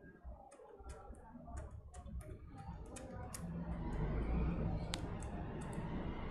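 Bicycle freewheel ratcheting in a run of light, even clicks, about three a second, as the wheel is turned slowly by hand. From about two-thirds of the way through, a steady rushing noise grows louder.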